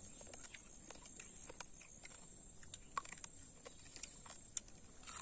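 Quiet, scattered clicks and smacks of a person eating cooked crab and rice with his fingers and chewing.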